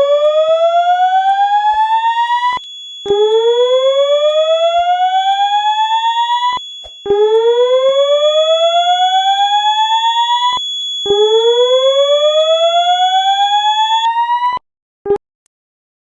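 Fire alarm voice-evacuation system sounding its whoop tone: a loud rising sweep repeated about every four seconds, with a steady high tone alongside. The alarm cuts off near the end, followed by one short blip.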